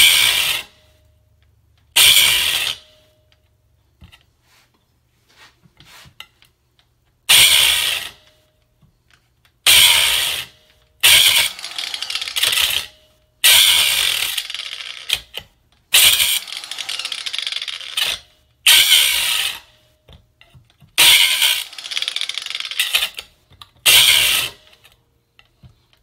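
Angle grinder wheel grinding into the steel pin of a worn car door hinge, in about ten short bursts of high grinding noise with pauses between: the head of the worn hinge pin is being ground off so the pin can be knocked out.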